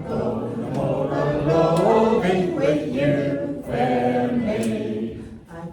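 A group of voices singing a sea shanty together in chorus.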